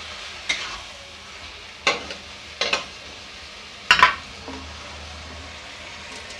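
Tomato-onion masala sizzling in oil in a metal kadai while a spatula stirs it, with a few sharp knocks of the spatula against the pan, the loudest a quick double knock about four seconds in.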